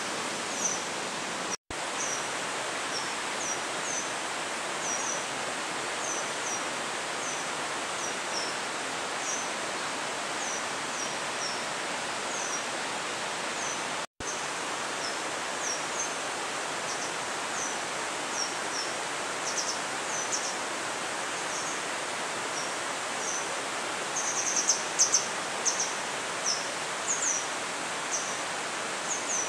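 Outdoor mountain-forest ambience: a steady, even rushing noise with a small bird repeating short, high, falling chirps about once or twice a second, busier near the end. The sound cuts out for an instant twice.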